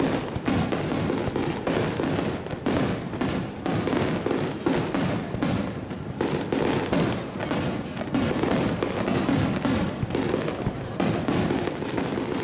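Aerial fireworks bursting in rapid succession, a dense run of booms and crackles with no break.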